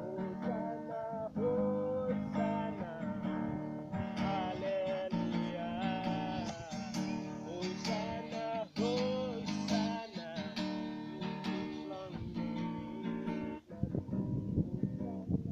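Music led by a strummed acoustic guitar, with a melody line over the chords; the music dips briefly near the end.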